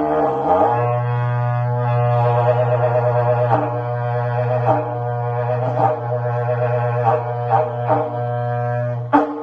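Berrante, the Brazilian ox-horn cattle-calling horn, blown in one long low note lasting about nine seconds. The pitch dips briefly just after the start, then holds steady with small wavers until it stops near the end.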